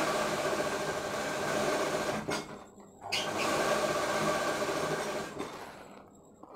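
Straight-stitch sewing machine running as fabric is stitched, in two runs: it stops briefly about two seconds in, starts again, and slows to a stop near the end.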